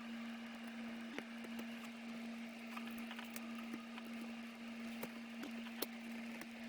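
Faint scattered clicks and taps of small laptop parts and screws being handled during reassembly, over a steady hum.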